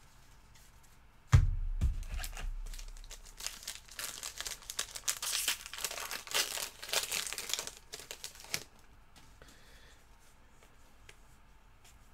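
A sharp thump about a second in, then several seconds of crinkling and tearing as a foil trading-card pack wrapper is ripped open.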